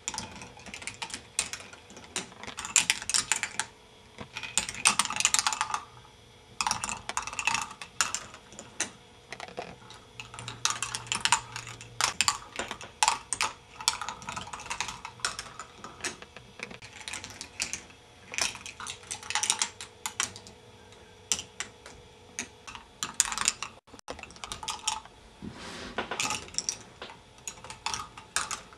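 Plastic balls rolling and clattering through a K'nex ball machine's tracks and elements: rapid plastic clicks and rattles that come in bursts, with a faint steady hum underneath.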